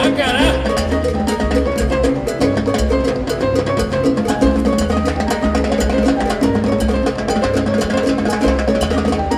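Live salsa band playing an instrumental passage, with timbales and a jam block struck with sticks over a moving bass line and held pitched notes.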